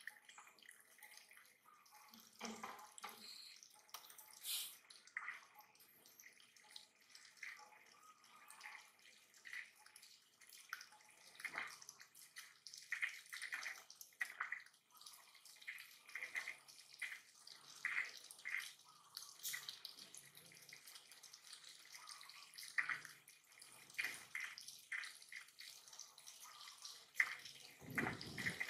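Water spurting from a leaking pipe fitting and spattering down onto a tiled step and puddle, a steady irregular splashing.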